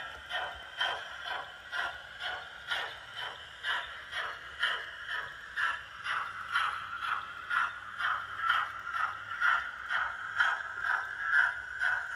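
Steam sound from the DCC sound decoder in a Bachmann Fairburn 2-6-4 tank model locomotive, played through its onboard speaker as the loco runs: an even rhythm of exhaust chuffs at about two a second. Beneath the chuffs runs a steady high whine that grows louder in the second half.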